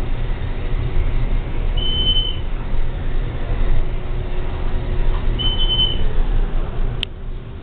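Elevator car running upward with a steady low rumble, while the CE position indicator gives a short high beep for each floor passed, twice, nearly four seconds apart. A sharp click near the end as the car stops at the floor.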